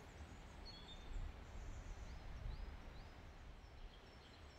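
Faint outdoor ambience with a low rumble, and birds chirping high and thin: three short rising notes in a row near the middle, with a few other chirps around them.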